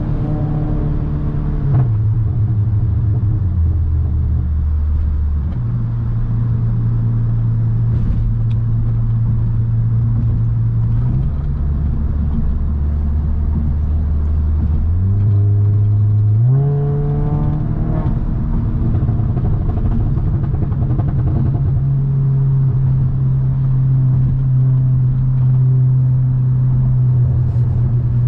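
2017 Audi S3's turbocharged 2.0-litre four-cylinder engine and exhaust heard while driving. The engine note steps down in pitch a few times early on, then climbs in a quick rev a little past halfway and holds steady at the higher pitch.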